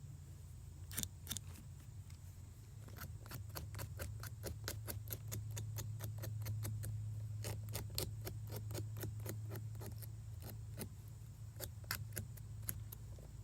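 Razor blade scraping blackened corrosion off stripped copper wire ends so the solder will take: a quick run of short strokes, about four a second, over a steady low hum.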